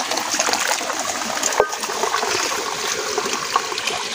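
Water from a small spring trickling and splashing over wet rock, steady throughout, with one sharp knock about one and a half seconds in.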